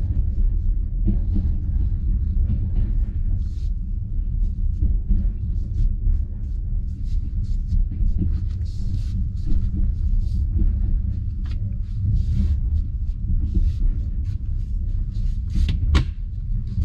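Steady low rumble of a moving passenger railway carriage, its wheels running on the rails, heard from inside the car. Frequent light clicks and knocks sound through it, with one sharper knock about sixteen seconds in.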